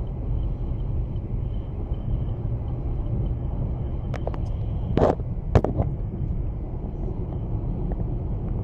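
Steady road and engine noise inside the cabin of a 2015 Chevrolet Malibu cruising at about 62 mph. A few short clicks and knocks come about four to six seconds in.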